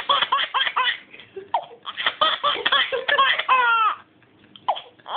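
A nine-month-old baby laughing in quick, high-pitched bursts of giggles, with a short pause about four seconds in before the laughing starts again.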